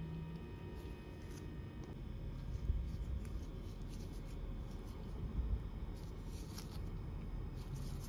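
Steady low room rumble with a few faint rustles and light clicks as nitrile-gloved fingers handle a small plastic wiring connector and a crimped wire terminal.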